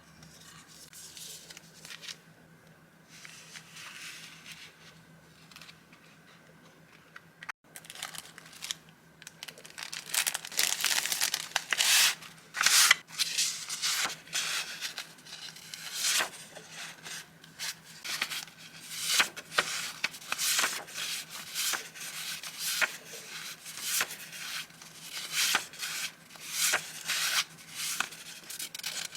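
Paper being handled and unwrapped: soft rustling at first, then louder, busier crinkling and crackling from about a third of the way in, in quick irregular strokes.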